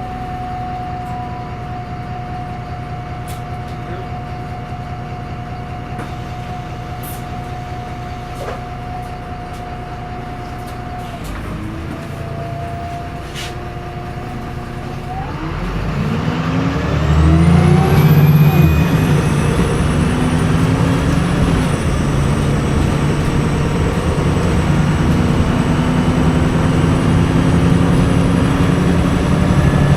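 VDL SB200 Wright Pulsar 2 bus's diesel engine running steadily with a steady whine. About halfway through it pulls away: the engine speeds up, getting louder, and a high-pitched turbo whine sweeps up and then holds high.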